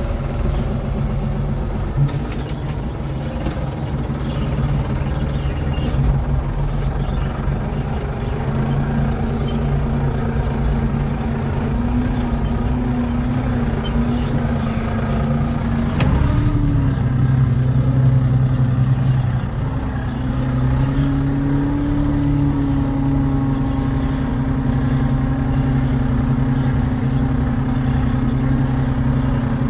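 Antonio Carraro compact tractor's diesel engine running under way, heard from the driver's seat inside the cab. The engine note is steady but shifts pitch a few times, and there is a sharp click about halfway through.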